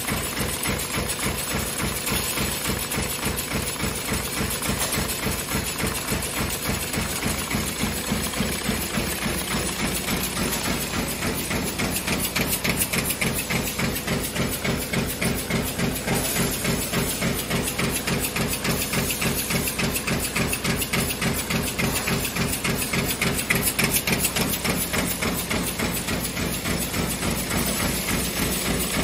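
CNC sheet-feed press line stamping 83 mm tin can ends, running with a rapid, steady stamping rhythm of metal impacts that doesn't let up, alongside the curling machine's mechanical running noise.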